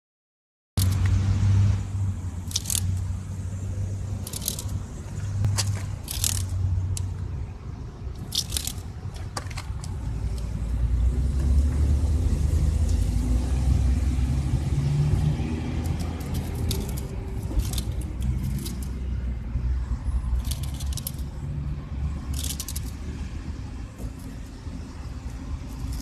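A cicada on the ground giving short, high buzzes, about a dozen in all and each under half a second, over a steady low rumble that swells in the middle.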